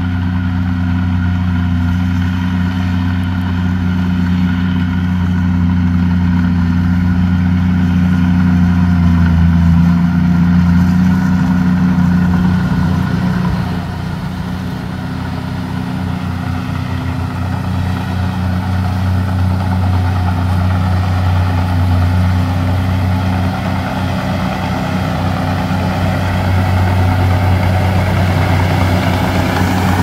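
Komatsu D31P crawler dozer's diesel engine running steadily. It eases off about halfway through and builds back up.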